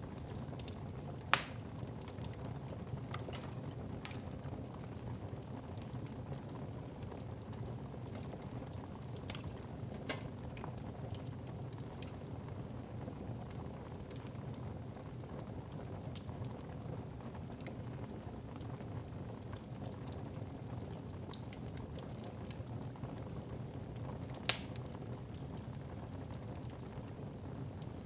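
Wood fire burning in a fireplace: a steady low rushing hiss with scattered small crackles and two sharp pops, one about a second in and one near the end.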